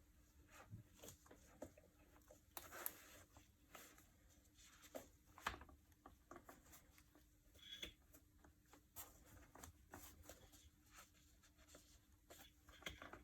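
Near silence: room tone with faint, scattered light clicks and taps.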